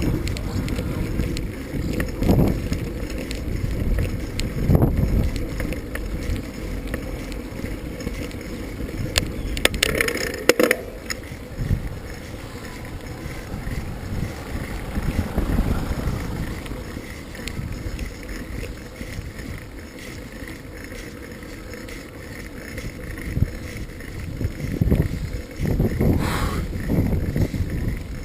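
Wind buffeting the microphone over a low, uneven rumble from a moving vehicle, with a few short knocks about ten seconds in.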